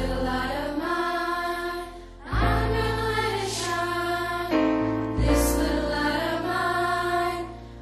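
Music with choir-like sung voices holding long notes over a deep bass, in phrases of about two and a half seconds with short dips between them.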